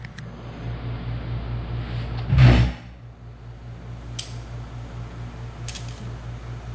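Hand tools handled on the connecting-rod bolts of a VW crankshaft: a loud metal thump about two and a half seconds in, then two light sharp clicks, over a steady low hum.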